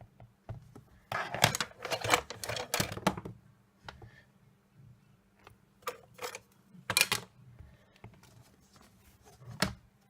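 Quick runs of tapping and clacking from rubber stamping: a stamp on its block dabbed repeatedly on an ink pad and pressed down onto card. There are three runs, the longest about a second in, with a single knock near the end.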